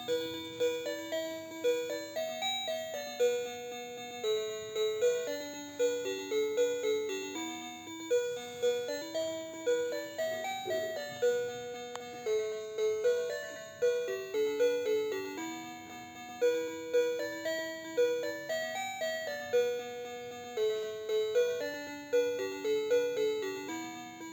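Electronic chiming melody of plain bell-like notes, a short tune looping about every eight seconds.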